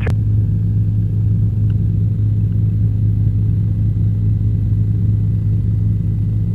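Helicopter cabin noise picked up through the intercom: a steady low drone from the rotor and engine, with a faint steady high whine above it. A sharp click right at the start, as the radio transmission ends.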